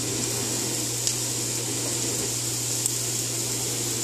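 Steady whirring noise of a small motor with a constant low hum, and two faint ticks, one about a second in and one near three seconds.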